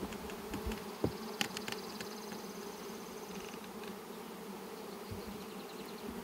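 Honey bees buzzing around an open hive in a steady, continuous hum. A few light knocks come in the first two seconds.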